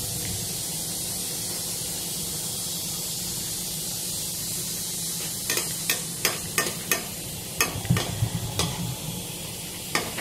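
Khoya dough balls for gulab jamun deep-frying in oil in a kadhai: a steady sizzle. From about halfway, a slotted metal spoon turning them clicks and taps against the pan about a dozen times.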